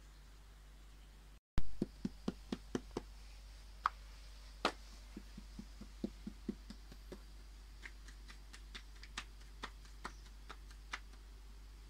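Hands patting and pressing soft bread dough flat on a metal tray, giving short light knocks and taps: about six in quick succession near the start, then scattered taps.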